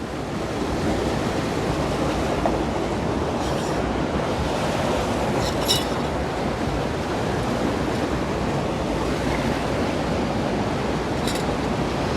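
Waterfall rushing steadily, with a few faint brief clicks over it.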